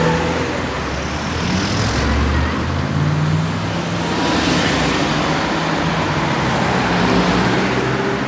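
Slow town traffic: car engines running at low speed with tyre and road noise, among them the supercharged V8 of a Mercedes-Benz SLR McLaren Stirling Moss. The engines hold a steady low note with no hard revving.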